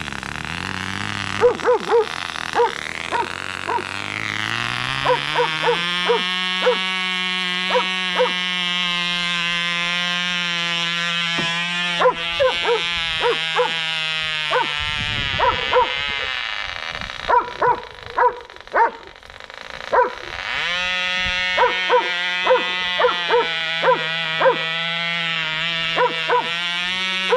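Tiny Cox two-stroke glow engine on a model helicopter running at a high, steady pitch. It rises over the first several seconds as it spins up, falters and drops away for a few seconds past the middle, then picks back up. A dog barks repeatedly over it.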